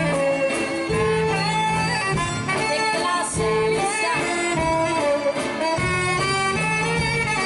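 Band music: a mostly instrumental passage with melody lines over a repeating bass note.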